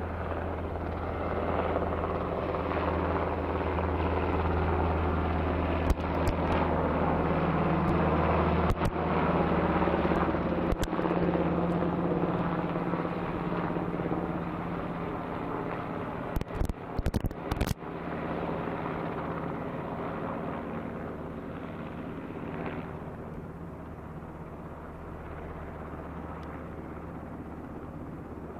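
UH-60 Black Hawk helicopter flying by, its rotor and turbines making a steady low hum that grows louder through the first half and then fades as it passes. A few sharp clicks cut in, bunched together about two-thirds of the way through.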